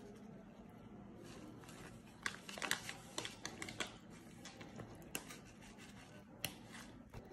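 Plastic bag of grated Parmigiano crinkling as it is shaken over a plate, with a fork clicking on the ceramic plate. The clicks and crinkles cluster from about two to four seconds in, with a few single sharp clicks after.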